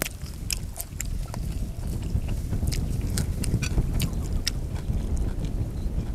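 Close-up chewing of a mouthful of shrimp larb: irregular wet clicks and crunches over a low rumble.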